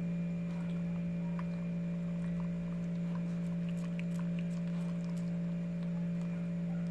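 A steady low electrical hum, with faint small wet clicks of a dog licking and nibbling durian flesh from the husk.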